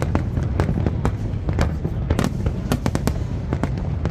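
Aerial fireworks going off: many sharp bangs and crackles in quick, irregular succession over a continuous low rumble.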